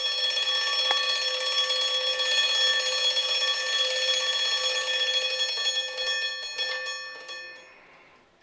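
Mechanical wind-up alarm clock ringing its bell, a loud continuous metallic ring that fades out near the end. A single click sounds about a second in.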